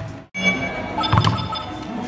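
A dance-music track with a heavy steady beat cuts off at the start. It is followed by the electronic tones of a whack-a-mole arcade machine, with a couple of knocks about a second in.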